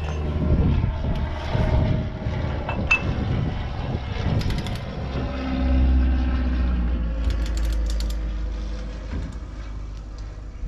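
Ratchet wrench clicking in two short quick runs, with a single metallic tick before them, as the rear hub's adjusting nut is snugged slightly to set the wheel bearing play. Under it runs a steady low rumble that swells for a few seconds midway.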